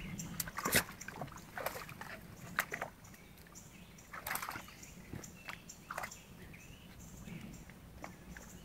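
Small dog splashing and wading in a shallow puddle: irregular slaps and sloshes of water, one of the larger splashes about four seconds in.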